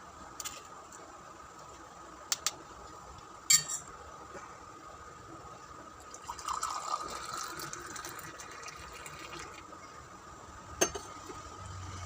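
Kashayam, a herbal decoction, being poured out for about three seconds, with the pitch of the pour rising. Sharp clinks of utensils come before the pour, the loudest a few seconds in, and once more near the end.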